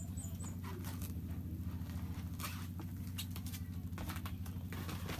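Light, scattered pattering and scratching of kittens' paws and claws on a bare floor as they play, over a steady low hum.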